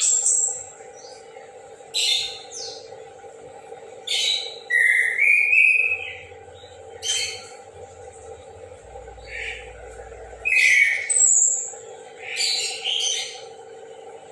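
Chestnut-capped thrush (anis kembang) singing: short, loud bursts of song about every one to two seconds, some with clear whistled notes, over a steady background hum.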